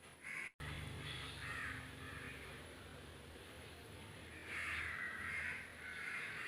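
Crows cawing faintly a few times, the longest call about two-thirds of the way through, over a low steady hum.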